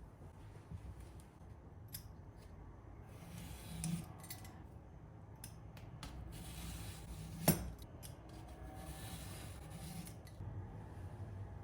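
Quiet kitchen handling sounds: light clicks and rubbing, with one sharp click about seven and a half seconds in.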